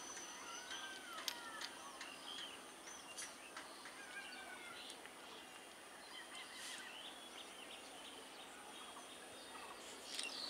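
Birds chirping and calling in short rising and falling notes, scattered throughout, over faint steady background noise with a few light clicks.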